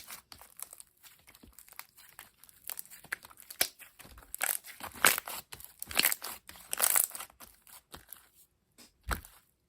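Green glossy slime being squeezed and stretched by hand, giving irregular crackling, squishing pops. They come thickest from about halfway through, pause briefly near the end, and then a short low thump sounds.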